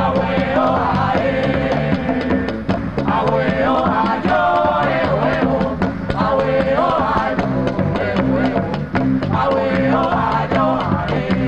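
Live ensemble of Latin American folk instruments playing: a wavering melody line over a stepping bass line, with percussion strokes throughout.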